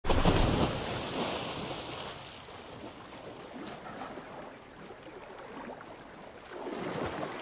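River water splashing, loudest in the first second, then settling to a steady flow that swells again near the end.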